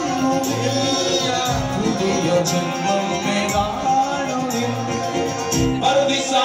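Live music with a man singing into a microphone.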